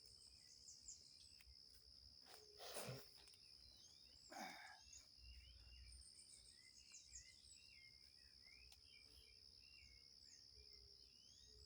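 Faint forest ambience: a steady high insect drone under many short, varied bird chirps, with two brief rustling noises a few seconds in.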